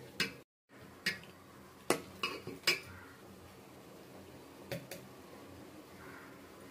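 Steel ladle clinking against an aluminium pot while stirring dal and chopped vegetables in water: a run of sharp metal clinks over the first three seconds and one more near five seconds.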